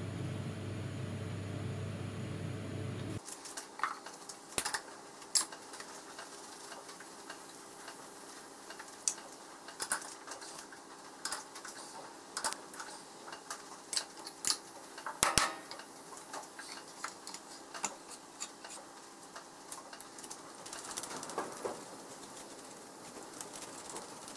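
A steady hum for about three seconds, then it cuts off and gives way to a fast, irregular run of sharp metal clanks, taps and knocks. These come from a chuck key and hands working a lathe chuck off the spindle and fitting another chuck in its place, played back at four times speed.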